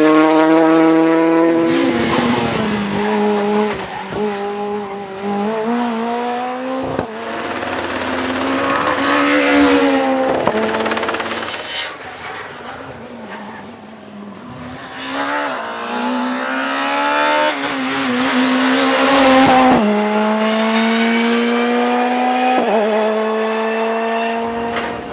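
Rally cars at full throttle, their engines climbing in pitch and dropping sharply at each gear change, several times over. A loud rush of noise comes as a car passes close.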